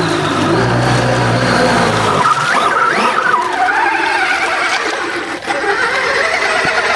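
Electric RC 6x6 truck driving hard through a flooded, muddy ditch: its motor whines, rising and falling with the throttle, over the steady churn and splash of six spinning tyres in the water.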